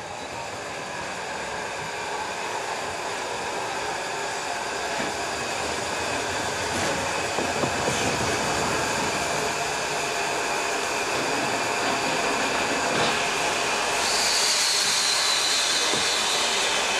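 Steam-hauled train running, its sound growing steadily louder, with a higher hiss coming in over the last few seconds.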